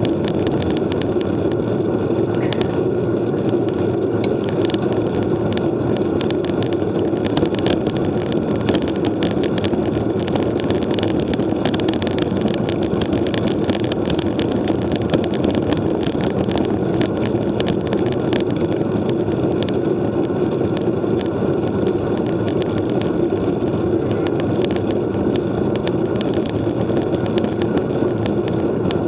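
Road bike on the move: a steady rush of wind on the microphone and tyre noise, with many small irregular clicks.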